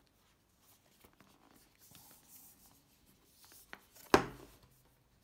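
Hands handling and turning a cardboard product box, with soft rubbing and small clicks, then one sharp knock about four seconds in.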